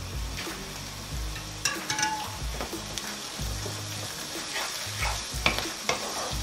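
Chopped onions, whole spices and freshly added ginger-garlic sizzling steadily in hot oil in a pan, while a wooden spatula stirs and scrapes through them. Sharper scrapes come about two seconds in and again near the end.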